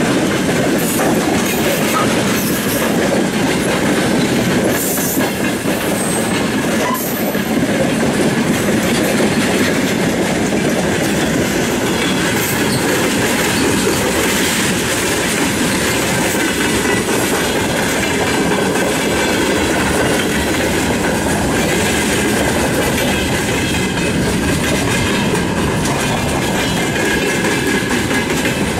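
Freight train wagons, hopper cars and then tank cars, rolling past at speed: a loud, steady rumble of steel wheels on the rails with the clickety-clack of wheelsets passing over the rail joints.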